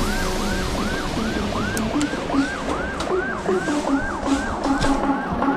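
Background music with a siren-like synth wailing up and down in pitch about four times a second over a pulsing bass note and sharp percussion hits.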